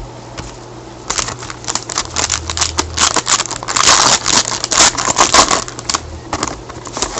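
Trading cards and their plastic packaging being handled: a run of crinkling and clicking that starts about a second in, is densest in the middle and thins out near the end.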